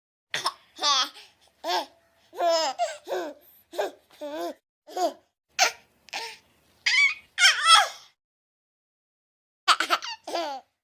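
A baby laughing and giggling in a string of short separate bursts with dead silence between them, as from spliced sound-effect clips; after a pause of about a second and a half near the end, two final bursts.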